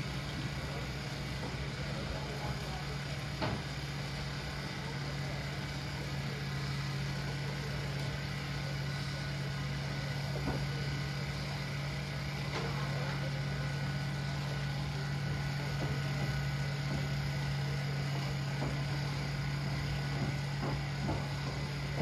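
A steady, even, low motor hum, with a few faint light knocks.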